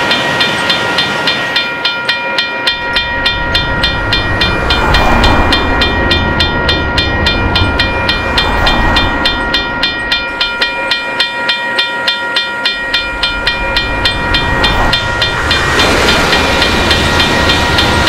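A railroad crossing warning bell rings steadily in a quick, even rhythm. Under it runs a low rumble, and a few whooshes of passing traffic and a train rise and fall.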